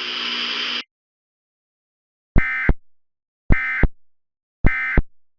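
Emergency Alert System end-of-message tones: three short, identical bursts of shrill digital data noise about a second apart. Before them, a hiss of static with a low hum cuts off under a second in.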